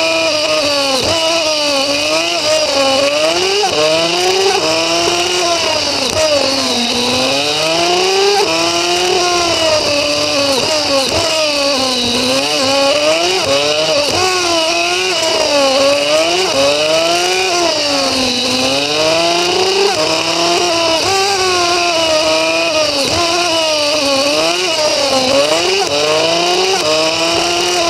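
Pit bike engine on the race track, revving up and dropping back over and over, about every two seconds, as the rider accelerates and backs off through the corners.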